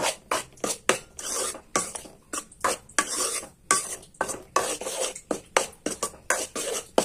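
Steel spoon stirring dry powder in a metal pan, with rapid, irregular clinks and scrapes of the spoon against the pan and a few longer scrapes.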